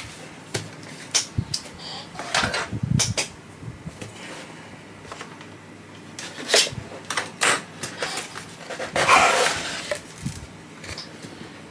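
Cardboard product box being opened: scattered sharp clicks and taps as scissors cut the sealing tape, then a longer scraping rustle of cardboard as the lid is lifted near the end.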